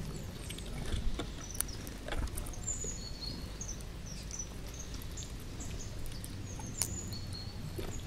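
Red squirrel feeding right at the microphone: scattered sharp clicks and crunches from its nibbling and pawing at the feeder. Small birds give short, high chirps throughout.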